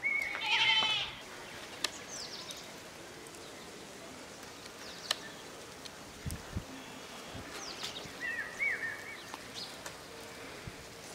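A goat bleats once at the start, a short pulsing call. Birds chirp a couple of times, and there are a few faint clicks and thuds in the quiet outdoor background.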